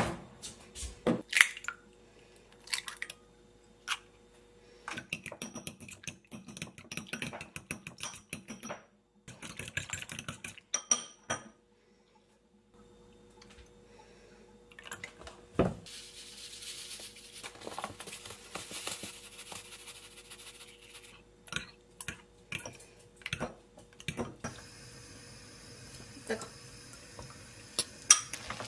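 Eggs knocked against the rim of a glass bowl, then beaten with a fork, the fork clicking rapidly against the glass. Near the end, beaten egg poured into a hot rectangular frying pan starts to sizzle.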